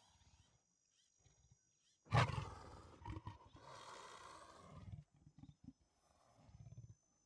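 Leopard roaring. A loud roar breaks out about two seconds in and trails off over about three seconds, with soft low grunts before and after.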